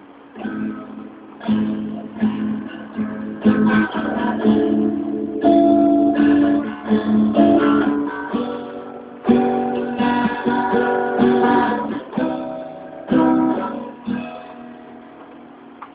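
Acoustic guitar strummed and picked, playing the chord intro before the singing comes in. The playing stops about a second and a half before the end, leaving a faint hiss.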